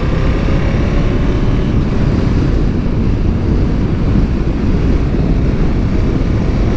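KTM 1290 Super Duke GT's V-twin engine pulling as the motorcycle accelerates gently, heard under heavy wind rush on a chest-mounted camera. One faint rising engine note near the start.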